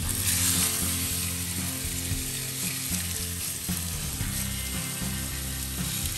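Spice-rubbed pork butt sizzling in hot oil in a frying pan. The sizzle starts suddenly as the meat goes into the pan and then holds steady as it sears.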